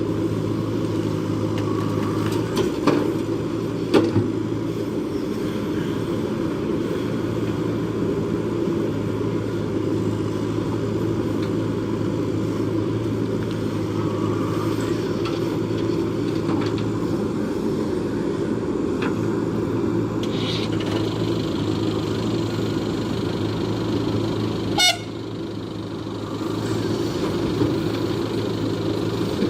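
Diesel engine of a JCB backhoe loader running steadily under work, with two sharp knocks a few seconds in and a sharp click near the end.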